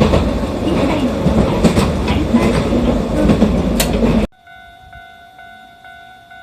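A Hiroden train runs past with clattering wheel clicks over the rail joints. About four seconds in, this cuts off abruptly to a level-crossing alarm ringing with a steady repeating electronic tone.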